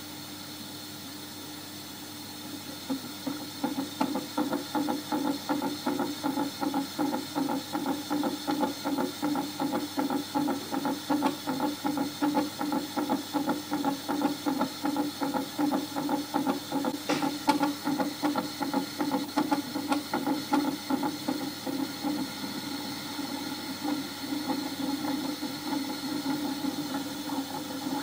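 A Daphnia (water flea) heartbeat made audible by laser light scattered off the beating heart, picked up and fed to a loudspeaker: a fast, even pulsing of about four beats a second over a steady hiss. The pulsing sets in about three seconds in and fades for a few seconds past the twenty-second mark.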